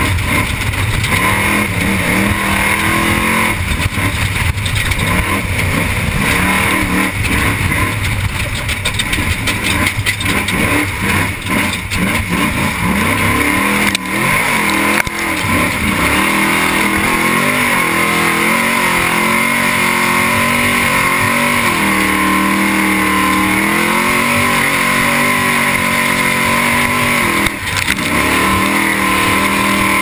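Desert off-road race truck's engine running hard at speed, heard from inside the cockpit, its pitch rising and falling with the throttle. Through the first half it is broken up by rattles and knocks. Near the end it drops off briefly, then picks up again.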